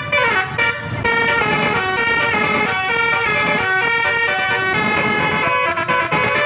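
Bus's basuri musical horn playing a melody: a run of loud, stepped notes that change pitch every few tenths of a second, several tones sounding together.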